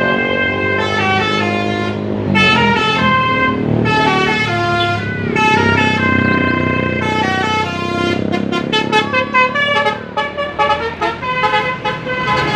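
Bus's basuri 'telolet' multi-tone air horn playing a tune, note after note, breaking into quick short toots near the end.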